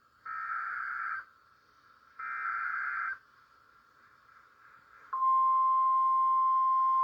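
NOAA Weather Radio Emergency Alert System activation for a severe thunderstorm warning: two SAME header data bursts, each about a second of harsh digital screeching, then after a short pause the steady, loud 1050 Hz warning alarm tone begins about five seconds in.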